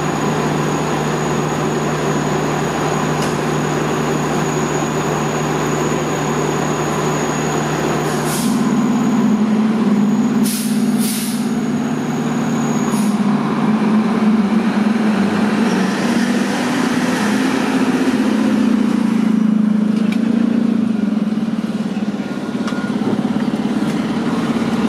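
Seagrave Marauder II fire engine's diesel engine running steadily, its pitch stepping up about a third of the way in. A few short, sharp air-brake hisses come around the middle.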